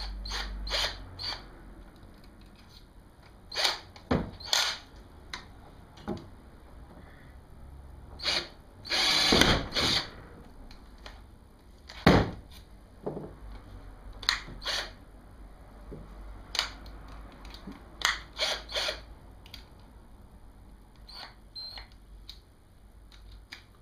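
Power drill-driver run in short bursts, drilling screw holes through a plastic kayak hull. The longest run lasts about a second, and sharp clicks and knocks from handling the drill and parts come in between.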